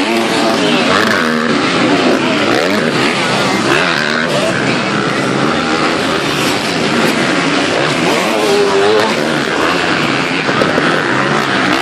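Several motocross bikes racing on a dirt track, their engines revving up and down with overlapping rising and falling notes.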